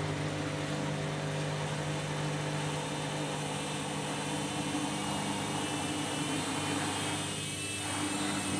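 Overloaded Candy washing machine running its spin, the motor humming at a steady pitch as the heavy drum turns.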